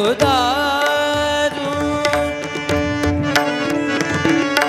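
Marathi Varkari abhang sung by a male voice. The line is ornamented, its pitch wavering, for about the first second and a half, then settles into a long steady held note. Hand-drum strokes and steady accompanying tones run under it.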